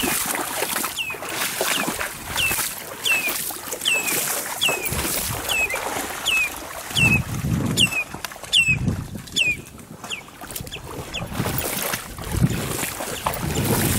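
Water sloshing and splashing as someone wades through knee-deep shallows, with a bird repeating a short falling chirp about twice a second that stops about nine seconds in.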